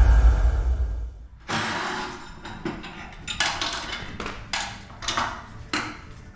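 The tail of intro music fading out in the first second. It is followed by a series of short knocks and clatters, about half a dozen, from hands and tools working on a dirt late model race car chassis.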